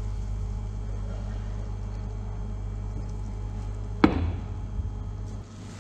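A single sharp knock with a brief ring about four seconds in, as a stainless steel saucepan is set down on the glass top of an induction hob, over a steady low hum that stops near the end.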